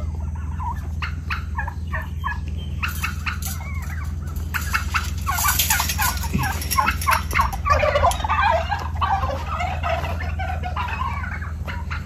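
Domestic turkeys calling: a run of short, quick calls that gets busier from about three seconds in, over a steady low hum.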